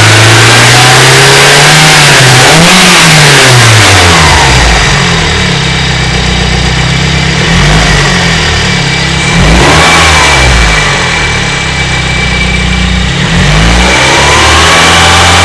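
BMW M42B18 four-cylinder engine revved up and back down several times from a steady idle. The engine has worn cam sprockets and a slack timing chain, which rattle most around 2,800–3,000 rpm.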